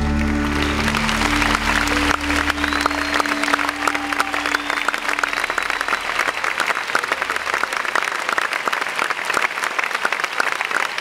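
Concert audience applauding at the end of a song, with the band's last held notes dying away under the clapping over the first several seconds.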